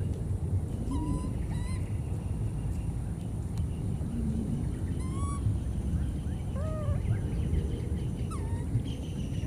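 Baby monkeys giving several short, high-pitched calls, spaced a second or more apart, over a steady low rumble.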